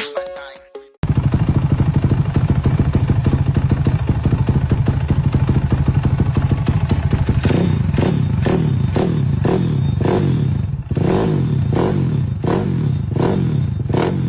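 Daytona Anima single-cylinder motorcycle engine idling with a rapid, even exhaust beat, then revved in a series of quick throttle blips from about halfway on.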